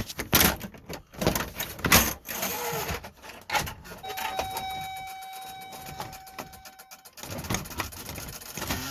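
Plastic clicks and knocks of a dashboard switch being worked loose, and a steady electronic warning tone from the truck's dash that starts about four seconds in, holds for about three seconds and cuts off suddenly.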